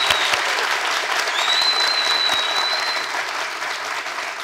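Studio audience applauding, with a long high whistle over the clapping about a second and a half in. The applause thins out near the end.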